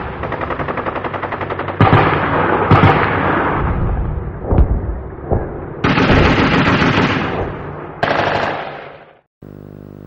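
Machine-gun fire in fast, even bursts of about ten rounds a second, then heavier battle gunfire with sharp single shots. It cuts off just before the end, giving way to a steady electrical hum.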